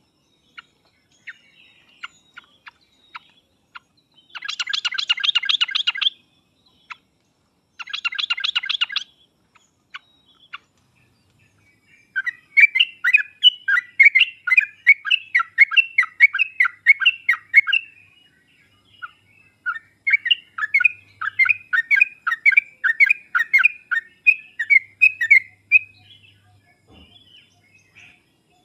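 Yellow-vented bulbul (trucuk) calling: two short bursts of fast chattering, then long runs of quick, sliding whistled notes.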